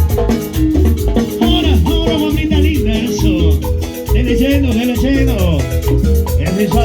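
Latin dance music with a steady pulsing bass beat and a lead melody of sliding notes.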